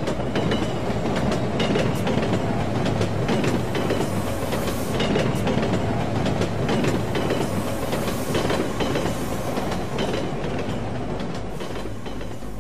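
Train running along the track: a steady rolling rumble of wheels on rail with a dense clatter of clicks, a dubbed railway sound effect.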